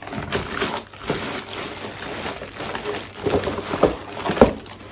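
Packaging rustling and crinkling as hands rummage through a cardboard delivery box, with a few louder knocks against the box near the end.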